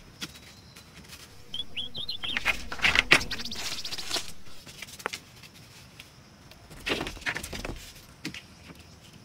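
Thin wooden poles being handled and laid across a pit, with rustling and light knocks of wood. The loudest is a rustling scrape about three seconds in, with another near the end. A bird chirps a few quick notes about a second and a half in.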